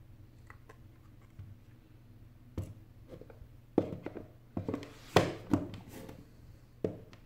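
Handling knocks and short scrapes on a wooden desk as an iPhone is set down on a rubber mat and its cardboard box is moved aside. There are several separate knocks, the loudest cluster about five seconds in.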